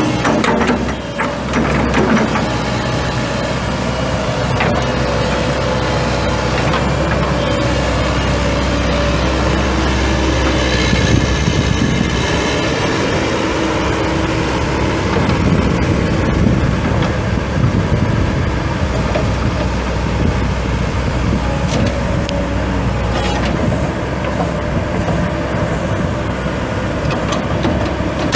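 A 1999 Case 9020B excavator's four-cylinder turbo diesel engine running steadily, with a faint high whine that wavers and occasional knocks.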